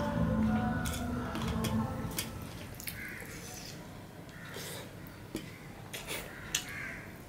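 Wet squishing and small clicks of fingers mashing and scooping curry-soaked rice on a steel plate, then close-up chewing and lip-smacking as a handful is eaten. A low steady hum fades out about two seconds in.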